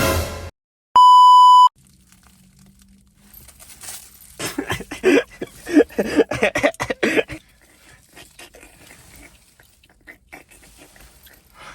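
A single loud, steady censor bleep lasting under a second, about a second in. A few seconds later comes a burst of a person's voice.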